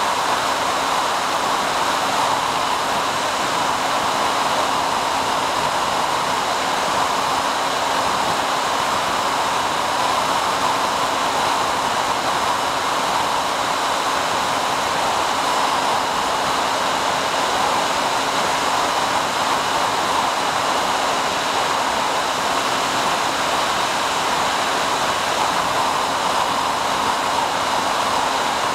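Steady rushing noise with a few faint steady tones held under it, unchanging throughout, on the audio channel of an FPV plane's video downlink as recorded by the ground DVR during level cruise.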